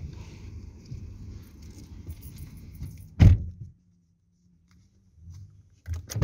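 Rustling and handling noise close to a hand-held phone as a disposable face mask is pulled on and adjusted inside a car, with one sharp thump about three seconds in, followed by a brief near silence.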